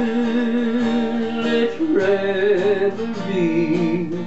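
A man singing three long held notes with a wide vibrato, over a strummed archtop acoustic guitar.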